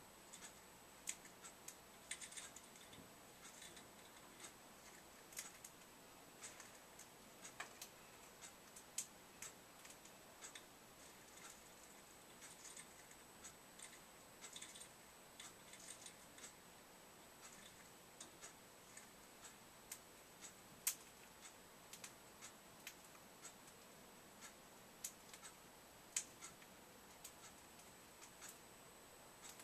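Faint, irregular clicks and taps, a few each second, from a parrotlet moving about its wire cage, over a faint steady high-pitched tone.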